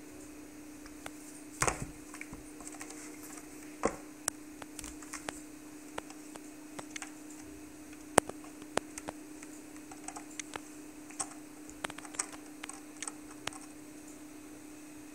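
Irregular light clicks and taps as a Maine Coon kitten paws and claws at a plastic scratcher toy and its springy wire wand, a few knocks louder than the rest, over a steady low hum.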